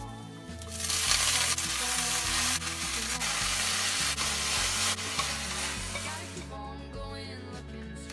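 Leafy greens and garlic stir-frying in hot oil in a frying pan: a loud, steady sizzle that starts sharply about a second in and fades away near the end, with soft background music underneath.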